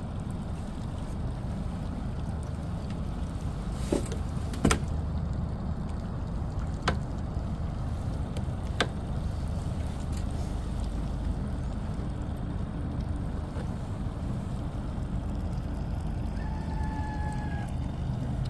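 Steady low hum of a boat's motor running while the boat trolls. A few sharp knocks are heard across the first half, and a short electronic beep comes near the end.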